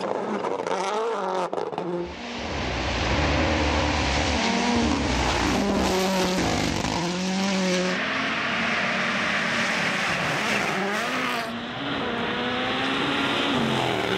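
Rally car engines at full effort on a gravel stage, the revs climbing and dropping repeatedly through gear changes, over a steady rush of tyre and gravel noise. The sound changes abruptly about two, eight and eleven seconds in as it cuts from one car to the next.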